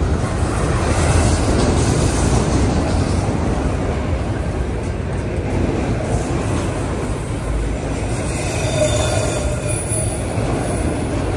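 CSX auto rack freight train passing close by: a loud, steady rumble of wheels rolling on the rails, with a faint high squeal from the wheels about nine seconds in.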